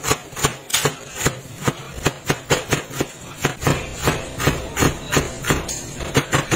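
A large kitchen knife chopping a vegetable into thin strips on a bamboo cutting board. The blade knocks on the wood in a quick, even rhythm of about three strokes a second.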